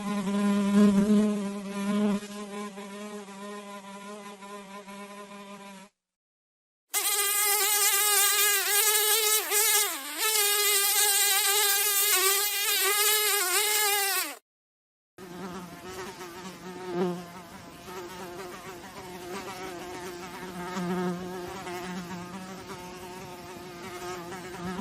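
Flies' wings buzzing, a steady drone with a rich stack of overtones, in three separate takes with a brief silence cut between each. The middle take, from about 7 to 14 seconds in, is louder and higher, its pitch wavering as the fly moves; the first and last are lower and steadier, the last swelling now and then.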